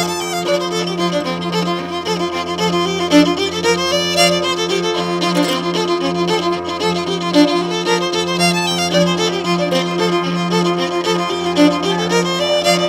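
Live acoustic band playing an instrumental tune: a fiddle carries the melody over mandolin and upright piano accompaniment.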